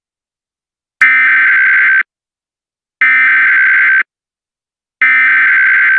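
Emergency Alert System SAME header: three buzzy digital data bursts, each about a second long and a second apart, that open an emergency alert message.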